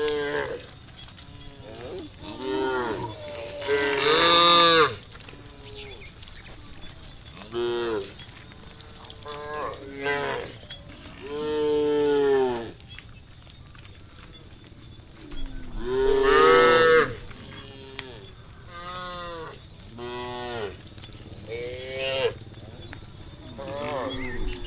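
Cows mooing again and again, about a dozen calls of different lengths, each rising and then falling in pitch. The loudest come about four and about sixteen seconds in. A steady high hiss runs underneath.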